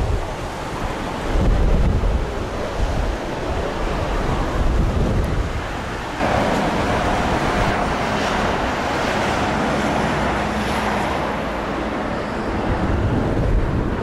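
Strong wind buffeting the microphone in low, gusty rumbles. About six seconds in, the sound switches to the steady rushing roar of a Boeing 787's jet engines on final approach, with a few held tones, a faint rising high whine, and wind still on the microphone.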